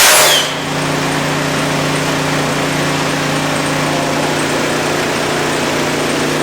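Air compressor running steadily, a constant droning hum. A loud burst of hissing air at the start cuts off about half a second in.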